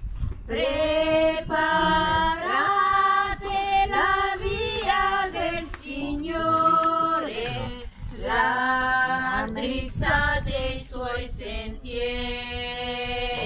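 Group of voices, women's voices leading, singing an Italian hymn to John the Baptist in long held notes, with short breaths between phrases.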